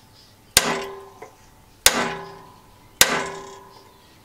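A hammer strikes a steel punch held against a rusted pivot pin three times, about a second apart, driving at the pin to knock it out of its bracket. Each blow is a sharp metallic strike that rings briefly and dies away.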